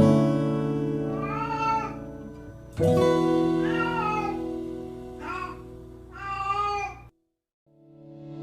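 A cat meowing four times over gentle acoustic guitar background music; the music stops briefly near the end and fades back in.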